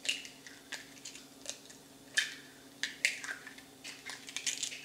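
Raw eggs being cracked open one after another: a series of short, sharp eggshell cracks, about one a second.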